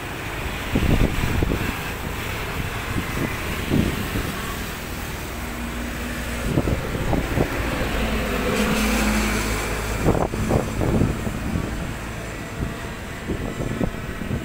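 Road traffic passing along a seaside road: a steady low rumble, with one vehicle growing louder and fading again about two-thirds of the way through. Wind gusts thump on the microphone several times.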